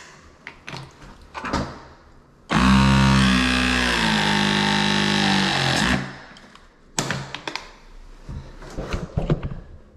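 Cordless copper tubing cutter running for about three and a half seconds, its motor pitch shifting slightly as it cuts through a copper water pipe at the wall. Before and after, clicks and knocks of tools being handled.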